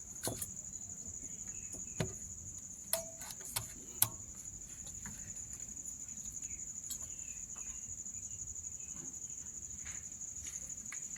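Steady high-pitched chirring of crickets, with a handful of sharp clicks in the first four seconds, the loudest about four seconds in, from hand tools being handled during the spark plug work.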